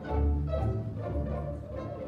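String orchestra playing, violins above cellos and double basses, with the low strings swelling into strong sustained notes at the start and again about halfway through.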